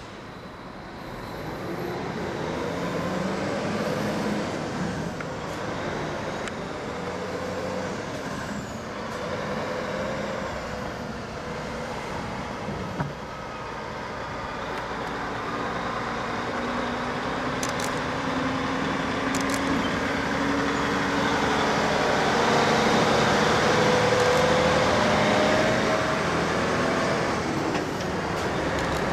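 Heavy diesel trucks moving a Shinkansen car on a long multi-axle trailer drive slowly past, engines running and tyres rolling, growing louder as the convoy comes near. There is a single sharp knock about 13 seconds in.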